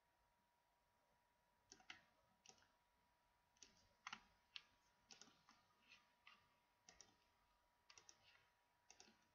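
Computer mouse buttons clicking: about twenty faint, sharp clicks, several in quick pairs or triplets, starting about two seconds in. A faint steady high tone hums underneath.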